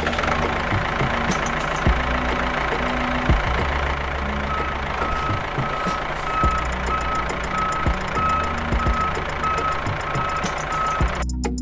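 A vehicle engine running steadily, joined about four and a half seconds in by a reversing alarm beeping at an even pace, the signal of a vehicle backing up.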